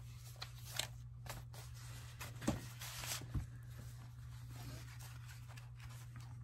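Paper and cardstock rustling and sliding as cards are pulled out of a journal pocket and handled, with a few soft taps, the loudest about two and a half and three and a half seconds in. A steady low hum runs underneath.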